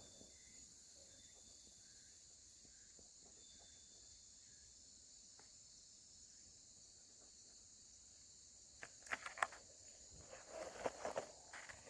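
Faint, steady, high-pitched insect chirring. From about nine seconds in it is joined by a run of crackling footsteps and rustles through undergrowth.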